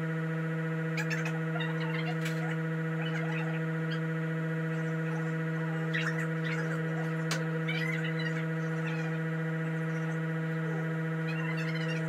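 A steady hum at one fixed pitch with several overtones, with scattered short high chirps and squeaks over it.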